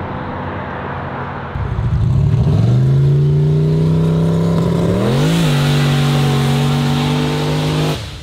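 A car engine running at first, then a much louder drag car engine revved hard and held at high revs while the car does a burnout on the start line. The pitch rises and dips once about five seconds in, and the sound stops abruptly near the end.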